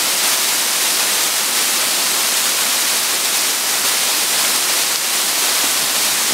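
Partly frozen waterfall, water pouring down between walls of ice: a loud, steady, unbroken rushing hiss.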